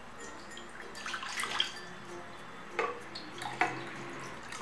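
Water poured from a plastic bottle into a glass and from the glass into an aluminium kadhai, with two sharp clicks near the middle.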